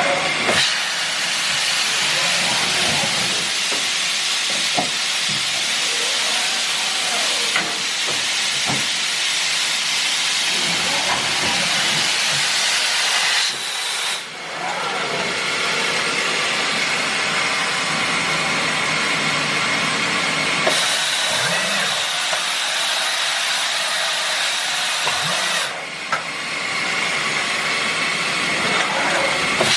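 Mazak Variaxis 630-5X five-axis machining center running, with a loud steady hiss and faint rising and falling whines of its motors underneath. The hiss drops away briefly about 14 seconds in and again about 26 seconds in.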